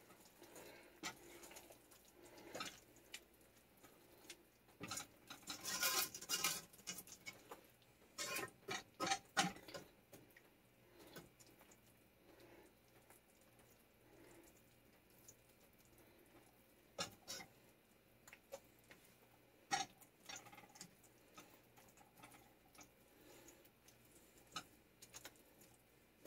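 Silicone spatula stirring a thick chicken-and-rice casserole in a stainless steel pan: faint, irregular scrapes and taps against the pan, in short bouts with quiet pauses between.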